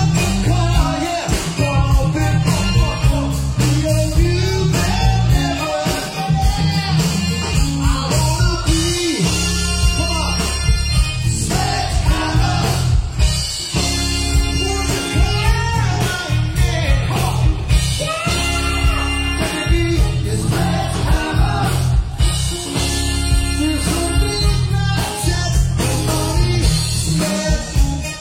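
A rock band playing a song with lead vocals, electric guitar, bass and drums, and a horn section.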